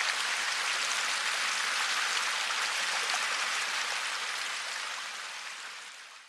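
Steady running-water ambience, an even rushing hiss with faint droplet-like patter, fading out over the last two seconds.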